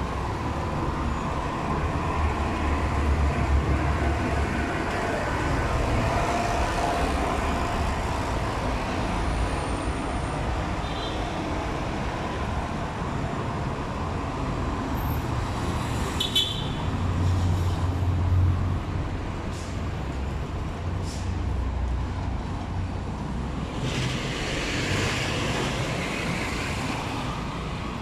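Busy city avenue traffic: a steady low rumble of passing motor vehicles, with a couple of brief high squeaks and a louder rushing hiss of a passing vehicle a few seconds before the end.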